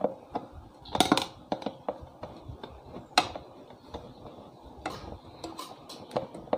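Hand screwdriver tightening screws through the metal mounting plate into the underside of a bar stool seat: irregular small clicks and metallic ticks, a few sharper clinks about a second in and about three seconds in.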